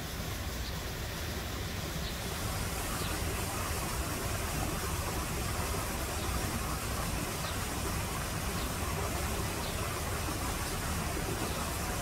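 Steady outdoor background noise: an even hiss over a low rumble, with a few faint short high ticks now and then.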